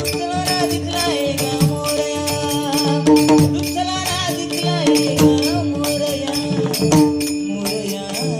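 Bhajan music: a sustained drone with a melodic line over it, kept in time by steady drum strokes and jingling small cymbals.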